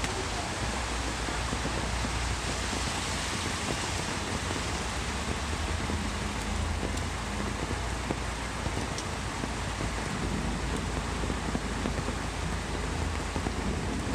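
Steady heavy rain falling, a continuous even hiss.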